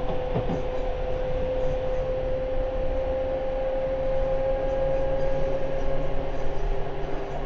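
Seibu 10000 series limited express running, heard from inside the passenger car: a steady rumble of wheels on rail under a motor whine that rises slowly in pitch as the train gathers speed and fades out about six and a half seconds in. A passing train goes by near the start, a brief falling sweep.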